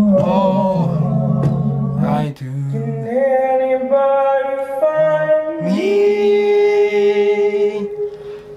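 Singing with no spoken words: first a few seconds of voices with a low accompaniment, then a single voice holding long notes, the longest for about two seconds, which fades near the end.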